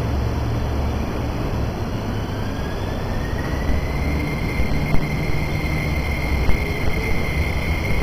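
MTR East Rail Line electric multiple-unit train pulling away, with a steady low rumble and a motor whine that rises in pitch over a couple of seconds, then holds steady; a second, lower whine starts rising near the end.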